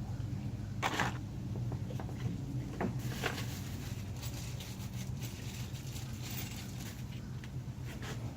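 Scattered clicks, knocks and light rustling of hardware and tools being handled while a quick release plate is fastened to a boat, the sharpest knocks about a second in and just past three seconds, over a steady low hum.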